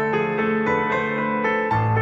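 Background music played on piano: a steady, even run of notes over a held bass note, the bass changing near the end.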